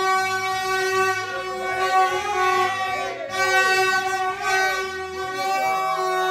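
Background music: a steady held chord with sliding melodic notes over it and a bass line that changes every second or so.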